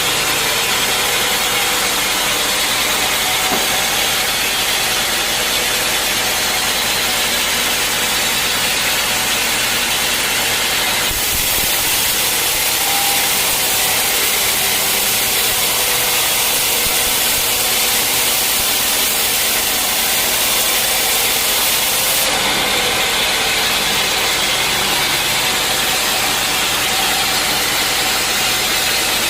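Sawmill running steadily at a sawmill working old teak. About eleven seconds in the sound turns hissier and thinner, and about eleven seconds later it goes back to its earlier tone.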